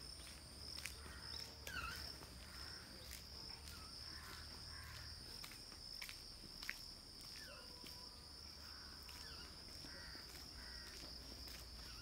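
Outdoor ambience dominated by a steady, high-pitched drone of insects, with a few short falling bird calls and faint footsteps on concrete.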